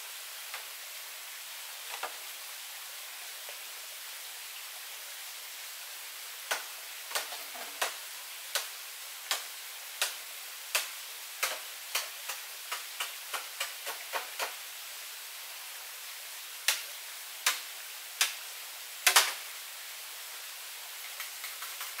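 A run of sharp knocks, roughly one every three-quarters of a second, then four more spaced further apart, the last the loudest, over a steady hiss.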